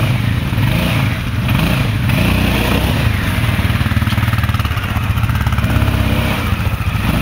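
Quad bike (ATV) engines running and revving as they pull through mud, the pitch rising and falling several times with the throttle.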